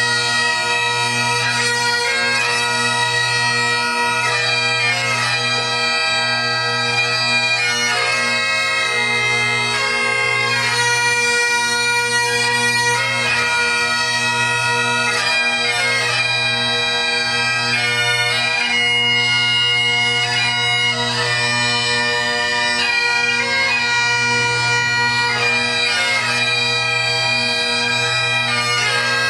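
Three Great Highland bagpipes playing a melody together over their steady, unbroken drone.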